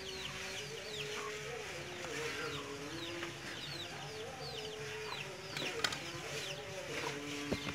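Chickens peeping and clucking: many short, high peeps that fall in pitch, over a low held tone that steps from note to note like soft background music. A few sharp knocks near the end, as a steel cleaver is laid on the wooden chopping block.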